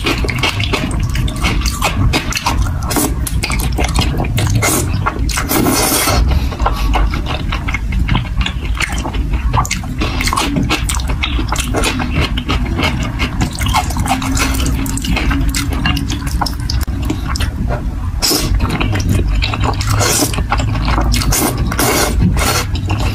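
Close-miked eating of thick sauce-coated noodles: wet slurping and chewing, with many quick sticky mouth smacks and clicks.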